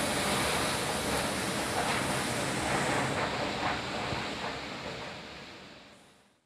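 Steady rushing of wind and rain during a cyclonic storm; it fades away over the last second or so.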